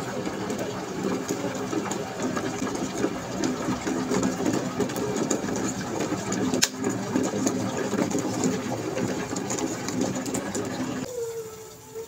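Hodekt electric kettle heating water with a dense, uneven rumble, with one sharp click about two-thirds of the way through. The rumble stops abruptly about a second before the end.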